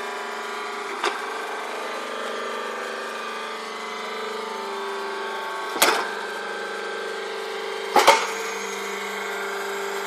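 Full-automatic hydraulic hay press baler running with a steady mechanical hum, with three sharp knocks: a light one about a second in, a loud one near six seconds, and a loud double knock at about eight seconds.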